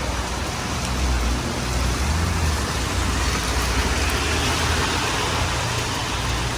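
Heavy rain hissing steadily, with a low rumble underneath.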